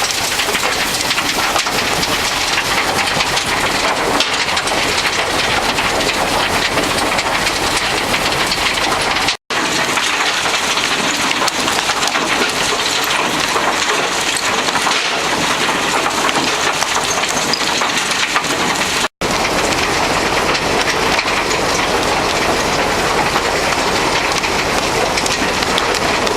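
Terra Select DT-5 trommel screen running on mixed construction and demolition waste: a dense, steady clatter and hiss of rubble tumbling through the rotating drum. The sound drops out for an instant twice, about nine and nineteen seconds in.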